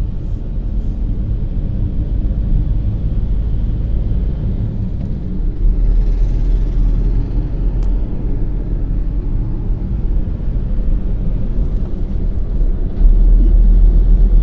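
Car driving along an open road, heard from inside the cabin: a steady low rumble of engine, tyre and wind noise. The rumble grows louder near the end.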